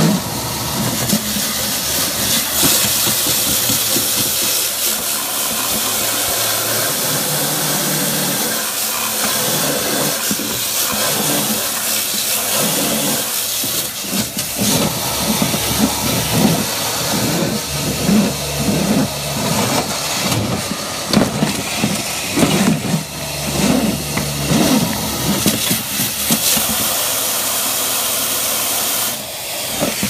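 Duct-cleaning hose working inside a heating duct through a floor register: a loud, steady rushing hiss of moving air. Through the second half come irregular low thumps, and the hiss drops briefly near the end.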